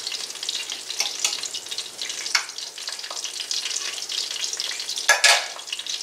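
Salmon patties frying in hot oil in a cast iron skillet: a steady sizzle with small crackles and pops. About five seconds in, the sizzling flares up louder as a utensil dips into the hot grease to spoon some of it out.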